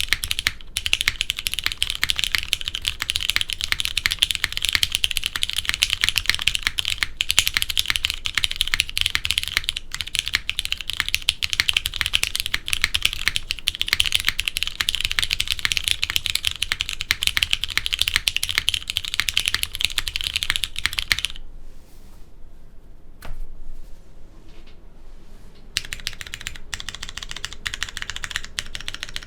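JJW Moment mechanical keyboard with Cherry MX Brown tactile switches on a polypropylene plate, typed on in a fast, continuous stream of keystrokes. About two-thirds through, the typing thins to a few scattered presses for several seconds, then picks up again more quietly.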